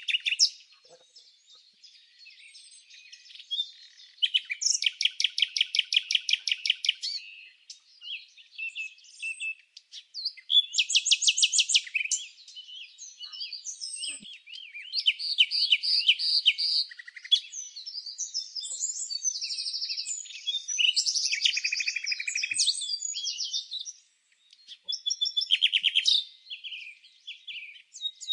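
Songbirds singing: high chirps and fast trills of repeated notes, about eight notes a second, in bursts of one to three seconds with short pauses between.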